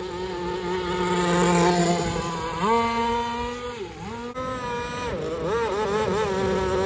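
Gasoline RC speedboat's two-stroke engine running at high revs with a high, buzzing whine. Its pitch steps up partway through, dips twice briefly near the middle, wavers, then holds steady.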